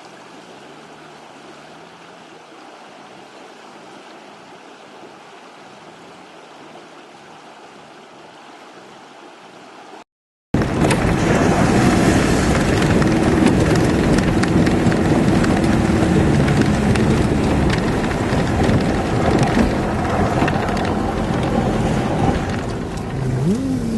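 A river flowing steadily. Then, about ten seconds in, after a cut, a Toyota Hilux Surf 4x4's engine runs steadily under load while water rushes and splashes around it as it fords the river.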